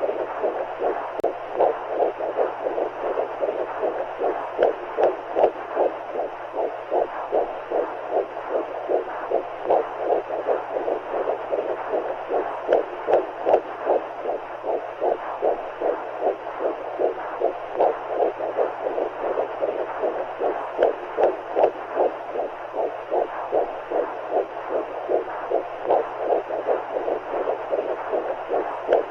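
Womb sound for lulling a baby: a steady, fast heartbeat pulse, each beat a muffled whoosh, over a constant rushing hiss like fluid in the womb.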